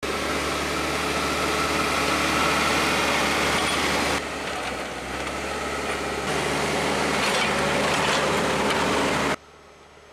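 Heavy loader's diesel engine running hard while it pushes snow, a steady loud engine drone that dips for a couple of seconds about four seconds in and then picks up again. It cuts off suddenly near the end, leaving only a faint hiss.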